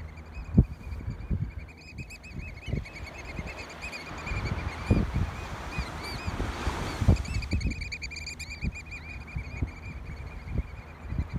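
American oystercatchers piping in their courtship display: a long, fast string of high, arched notes, several a second, thinning out around the middle. Wind buffets the microphone throughout.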